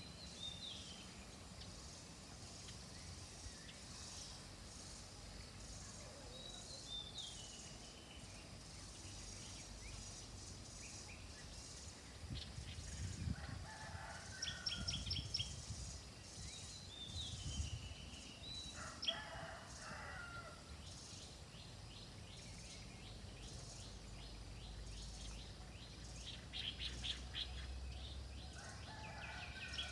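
Several wild birds calling: short falling calls again and again, and quick rattling trills, the loudest about halfway through and near the end. Chickens cluck now and then, all over a steady high hiss of background noise.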